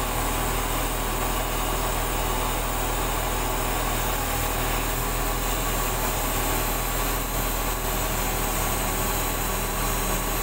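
Sany 25-ton truck crane's diesel engine running steadily at constant speed.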